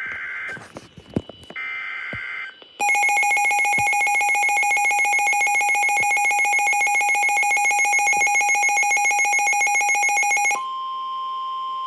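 NOAA Weather Radio emergency alert on a Midland WR400: the tail of the buzzy two-tone SAME digital header bursts for a tornado warning, then the radio's loud, rapidly pulsing electronic alert alarm for about eight seconds, which switches near the end to the steady 1050 Hz NWS warning alarm tone.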